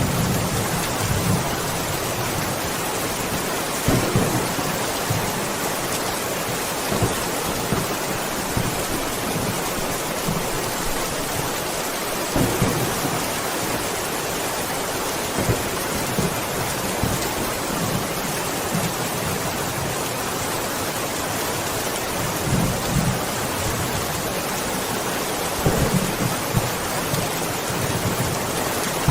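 Steady heavy rain hiss of a thunderstorm, with low rumbles of thunder coming and going every few seconds.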